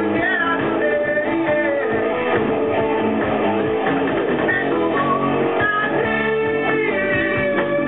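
Recorded rock music led by electric guitar, its guitar lines bending in pitch, playing at a steady level.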